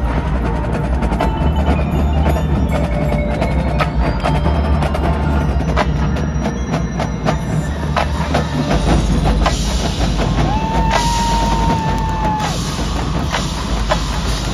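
Marching band show music dominated by percussion: many sharp strikes over sustained low notes, with a single high note held for about two seconds just past the middle.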